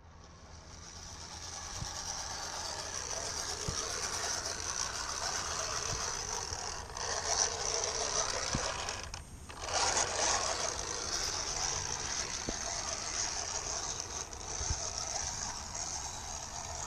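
Steady rushing of water from a waterfall, mixed with the patter of rain. The sound dips briefly about nine seconds in.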